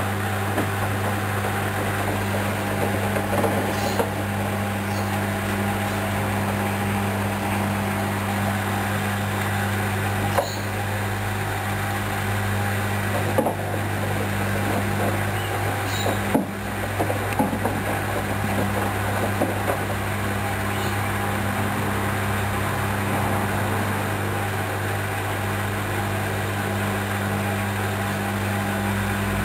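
Hoover Dynamic Wash 10+ washing machine running a mini-load wash: a steady low motor hum with scattered clicks and knocks from the turning drum and its load.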